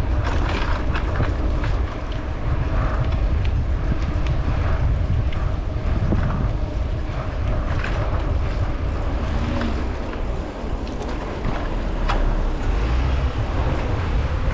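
Riding noise from a mountain bike on a city street: a steady low wind rumble on the microphone with frequent irregular clicks and rattles.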